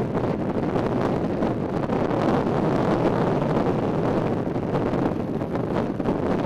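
Steady rush of wind on the microphone of a camera riding in a moving vehicle, with the vehicle's running noise beneath it.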